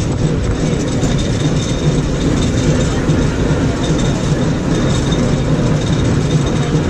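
San Francisco cable car running along its track: a steady, loud rumble and rattle of the car's steel wheels on the rails, with a faint high whine held steady above it.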